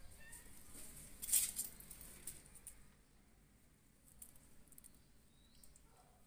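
Ginger kittens scuffling and playing: light scratchy patter and rustling, loudest about a second in, then fainter scattered clicks.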